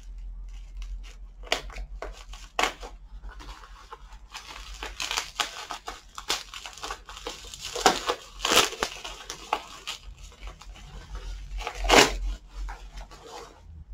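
Clear plastic wrapping being crinkled, torn and pulled off a small package by hand, with a steady crackle and a string of sharp rips. The loudest rips come about two thirds of the way in and near the end.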